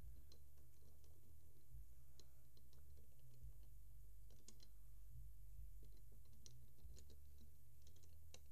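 Faint, scattered clicks of plastic LEGO bricks being handled and pressed onto a model car's chassis, over a steady low rumble.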